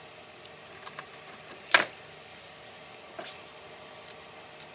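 Knife cutting into a lamp cord's soft plastic insulation: a few light ticks, one sharp snap a little under two seconds in, and a smaller click about three seconds in.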